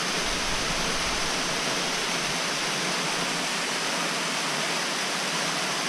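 Small waterfall pouring over rock into a pool: a steady, even rush of falling water.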